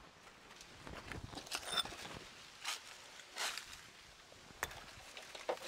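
Footsteps through forest undergrowth, irregular steps with rustling of leaf litter.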